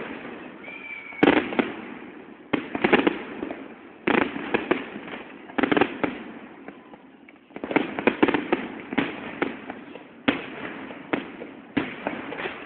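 Aerial fireworks going off: a steady string of bangs and crackling bursts, a new one every second or so, some in quick clusters, each trailing off in an echo.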